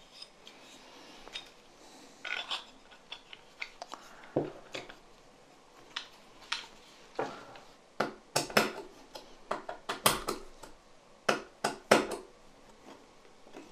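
Small plastic and metal parts handled and fitted: a small cooling fan set onto an LED headlight projector's finned heatsink and screwed down with a screwdriver. Scattered sharp clicks and knocks come through, busiest in the second half.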